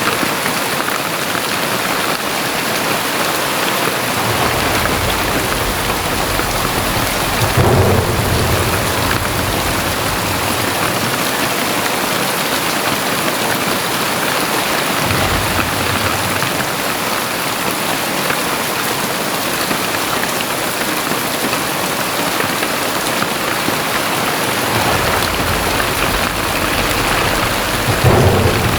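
Very heavy rain pouring steadily, with low rumbles coming and going underneath that swell briefly about eight seconds in and again near the end.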